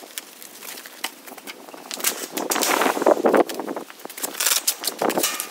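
Large glossy advertising banners rustling and crackling as they are pulled off a wire-mesh dog enclosure and handled, with a louder stretch of rustling about halfway through.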